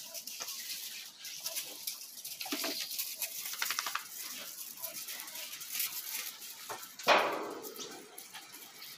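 Dogs playing on gravel: paws scuffing the stones while a puppy's plastic lid clicks and scrapes against the ground, with one loud short burst about seven seconds in.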